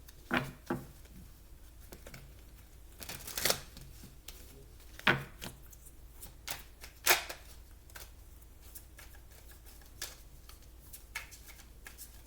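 Oracle cards being shuffled and handled, giving a scattering of short, sharp card snaps and slaps at irregular intervals.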